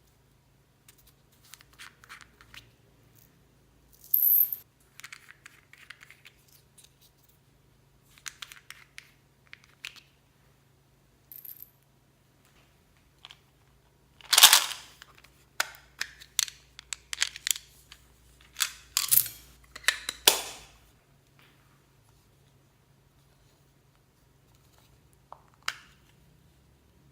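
Hands squeezing and pressing clear slime mixed with plastic beads and floam, giving irregular bursts of crackles and clicks with pauses between. The bursts are busiest and loudest a little past halfway through.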